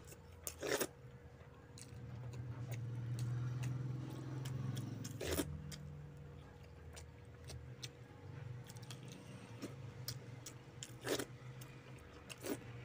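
Close-up eating by hand: small wet chewing and mouth smacks, with about four loud sharp clicks as fingers work rice and fish curry in a steel bowl. A low hum swells for a few seconds near the start.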